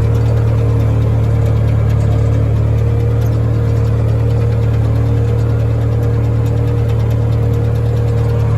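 An engine running at a steady speed, a loud even low drone that does not change.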